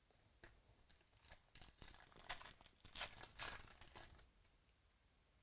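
Foil trading-card pack wrapper being torn open and crinkled: a run of rustling tears lasting about four seconds, loudest in the middle.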